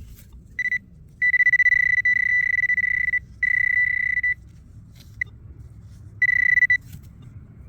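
Electronic metal detector tone: a steady high beep at one pitch, sounding in on-off stretches (a short beep, a long tone of about two seconds, another of about a second, a brief blip, then a short tone near the end) as the detector passes over a metal target.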